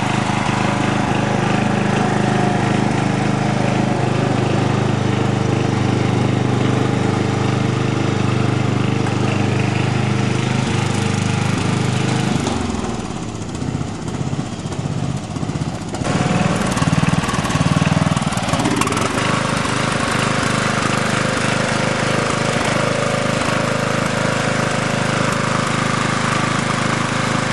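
The 12-horsepower Briggs & Stratton I/C single-cylinder engine of a 1987 Simplicity SunRunner lawn tractor runs steadily while the tractor is driven. About halfway through, the engine sound drops lower and quieter for about three seconds. It then comes back louder and settles into a steady run again.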